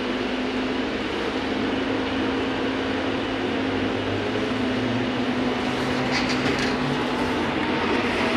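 Cabin noise of a VMZ-100 trolleybus under way: a steady hum from its electric drive over tyre and road rumble, with a short patch of light clicks about six seconds in.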